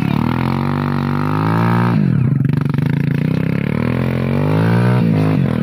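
Small motorcycle engine revving hard under a heavy load of oil palm seedlings, the rear wheel spinning on soft forest ground while the bike is pushed uphill. The revs drop about two seconds in, climb steadily again, and drop once more near the end.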